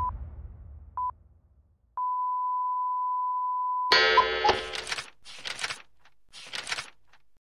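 Electronic transition sound effects: a low boom dying away, two short single-pitch beeps about a second apart, then one long steady beep of about two seconds. It ends in a short musical chord followed by a few brief swishing noises.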